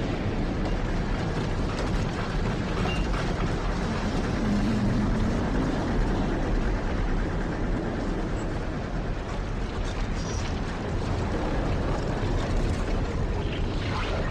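Simulated tornado sound effect: a loud, steady rumble of wind noise, heaviest in the low end.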